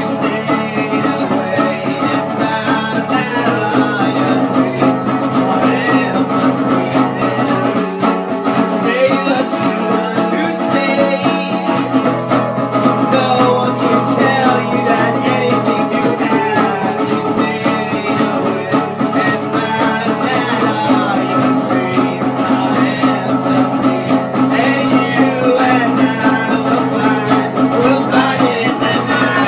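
Acoustic duo music: a resonator guitar strummed and picked steadily under a bowed musical saw, whose melody glides between notes with a wavering vibrato.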